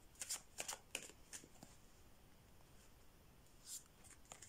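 Tarot cards being handled and shuffled by hand: a quick run of soft papery clicks in the first second and a half, then one more card sound shortly before the end.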